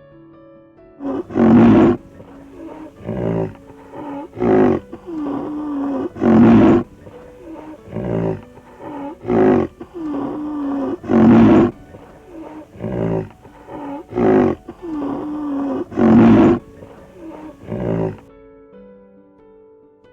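An animal roaring over and over: loud, rough roars in a regular repeating pattern, with shorter calls between them. They start about a second in and stop near the end.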